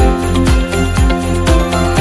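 Background music in a Christmas style, with jingle bells over a steady quick beat.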